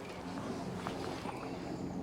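Small stream running, with a few faint clicks and knocks.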